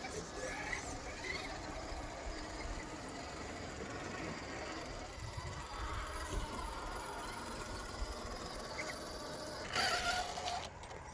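Small electric RC crawler trucks driving over loose dirt, their motors whining under a steady rumbling background. A short, louder sound near the end.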